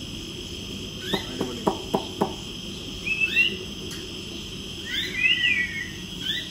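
Small birds chirping: short rising chirps every second or two, with two longer warbling calls, over a steady high-pitched trill like insects. A few quick knocks come about a second in.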